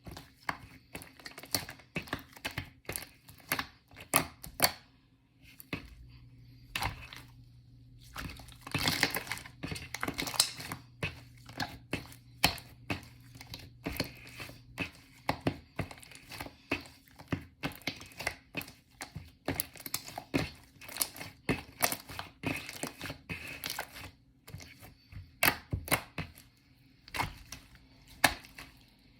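Shaving-foam marbled slime being squeezed, pressed and stretched by hand, giving a dense, irregular run of crackles and pops.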